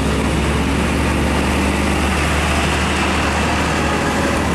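Slow road traffic passing at close range: a steady low engine drone of heavy vehicles over tyre and road noise.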